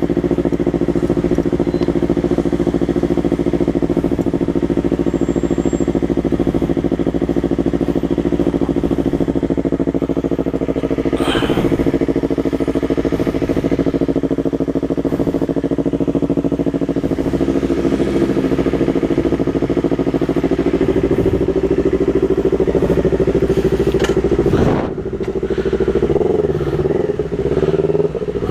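Yamaha MT-03's parallel-twin engine running through a Jeskap aftermarket exhaust with the dB killer removed, holding a steady cruising note. Near the end the engine note drops and then rises and falls as the throttle is eased off and worked again.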